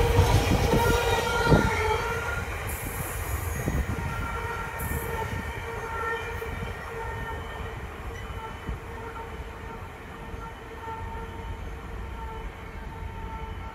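Container freight train's wagons rumbling and clacking over the rail joints close by. A sharp clack comes about a second and a half in. Then the sound fades as the train draws away, leaving a faint steady whine.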